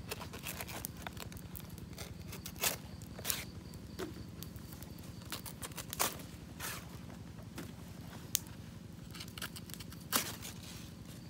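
Fresh banana leaf being cut with a small knife and handled, the stiff leaf rustling and tearing. A few sharp cracks stand out along the way, the loudest near the end.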